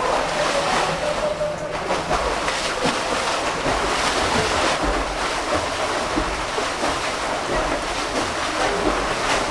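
A swimmer splashing through pool water with butterfly strokes: a steady, loud wash of splashing.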